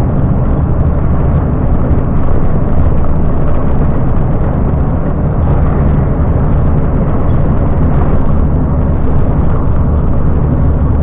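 Volvo FM 370 truck running at a steady cruise on the highway: a constant low engine drone mixed with road noise, with no gear change or other event.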